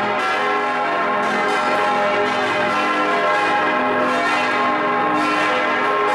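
Swinging church bells ringing close up in the bell tower, their strokes overlapping into a dense, continuous peal with a new stroke about every second.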